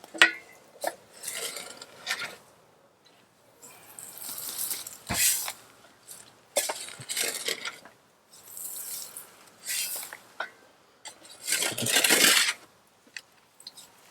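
Gritty sand mixed with sawdust and hay being scraped and shovelled out of a chicken coop: a run of rough scrapes and rustles about every one to two seconds, with a sharp clink near the start.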